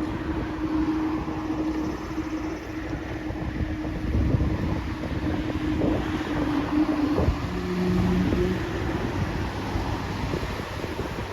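Rumble of a ZIPAIR Boeing 787 jet airliner's engines near Narita's runway, mixed with wind buffeting the microphone, with a steady low hum through much of it.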